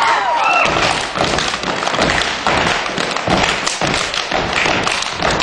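Step dancers stomping their feet on a wooden stage and clapping and slapping their bodies in a quick run of sharp beats, with no music behind them. Crowd cheers and whoops fade out in the first second.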